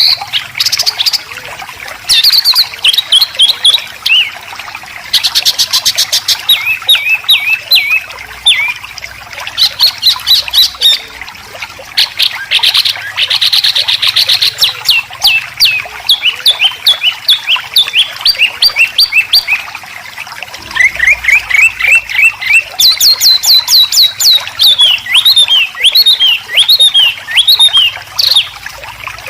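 White-rumped shama and greater green leafbird song made of harsh besetan phrases. It comes as rapid strings of short, sharp downward-sweeping notes, broken by several buzzy trills.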